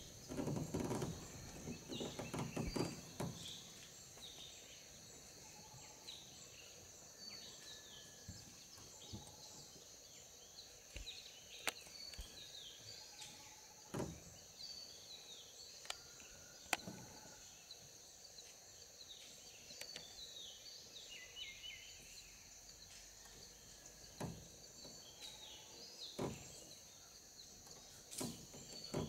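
Forest ambience: small birds chirping in short, scattered calls over a steady high insect buzz, with a few sharp clicks or snaps and a low rumble during the first three seconds.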